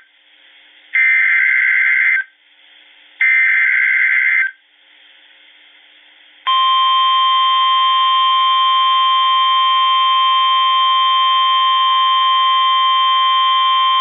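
Emergency Alert System SAME header: two bursts of screeching digital data tones, each about a second long, heralding a severe thunderstorm warning. Then about six and a half seconds in, the steady 1050 Hz NOAA Weather Radio warning alarm tone starts and holds.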